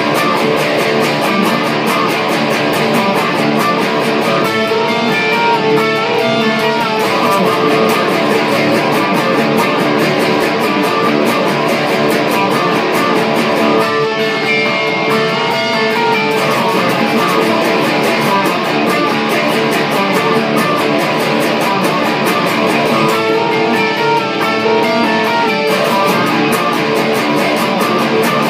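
Two electric guitars played together, a riff with a phrase that comes round about every nine seconds.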